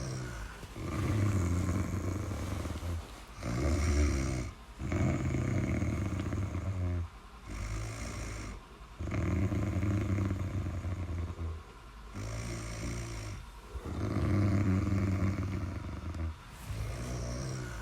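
Snoring: about eight snores in a row, each one to two seconds long with short breaks between them, some louder than others.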